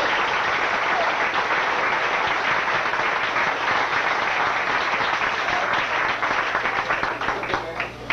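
Onlookers clapping: a steady round of applause that dies away near the end.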